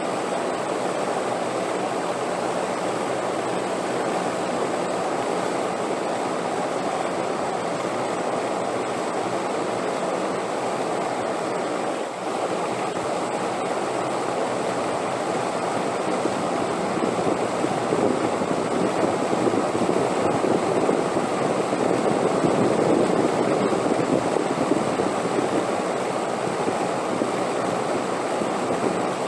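Steady rushing wind, an even roar that swells a little louder past the middle and eases again near the end.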